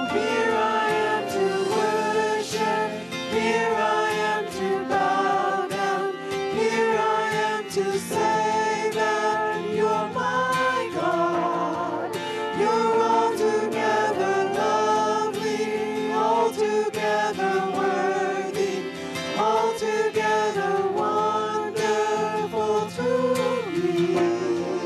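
A small group of singers singing a worship song together over instrumental accompaniment.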